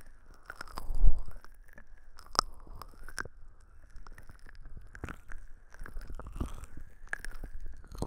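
Fingertips rubbing and pressing the silicone ears of a 3Dio binaural microphone: close crackling and rustling with a shifting hollow tone as the ears are covered and uncovered, and a low thump about a second in.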